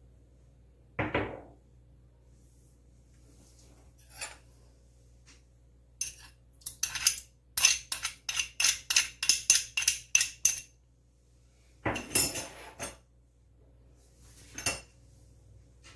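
A metal spoon clinks and scrapes against a small ceramic bowl in a quick run of about a dozen strikes, roughly three a second, knocking ginger paste off into the pot. A few single knocks and a short clatter of dishes come before and after.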